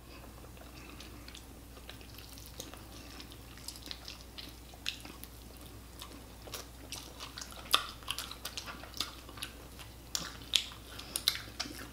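People eating sauced barbecue rib tips with their fingers: scattered wet lip smacks, bites and chewing. The smacks come more often in the second half, the sharpest about three-quarters of the way in, over a faint steady low hum.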